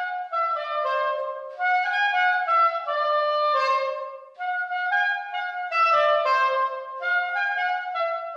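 Saxophone playing a short tune of held notes that step up and then down, the same phrase played twice, in a room with hard brick walls.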